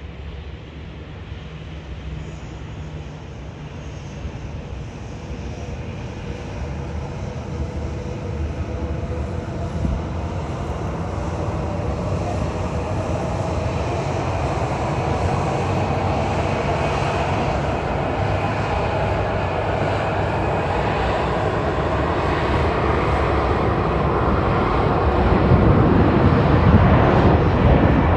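Boeing 737-800 jet airliner's CFM56-7B turbofan engines growing steadily louder as it comes in to land, with wind rumbling on the microphone.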